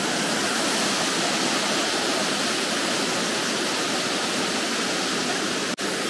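Waterfall close by: a steady, even rush of falling water, with one sudden brief drop-out near the end.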